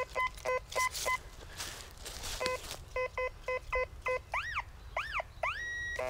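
Metal detector's audio response as the coil is swept over the forest floor: a string of short, low beeps, then about three tones that sweep up and fall back and a steady higher tone near the end, signalling a target under the coil.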